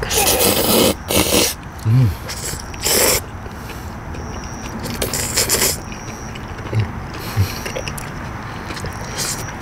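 People slurping spicy cold noodles from chopsticks: about five loud sucking slurps, the longest at the start and another about five seconds in.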